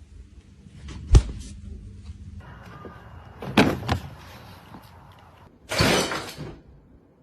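A sharp knock about a second in, two more knocks close together a little past the middle, and a short noisy clatter near the end: household knocks and bangs.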